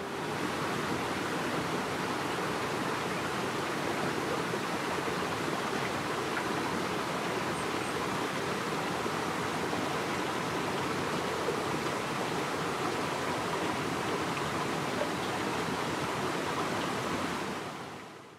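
Steady rush of flowing water, like a stream or waterfall, fading out near the end.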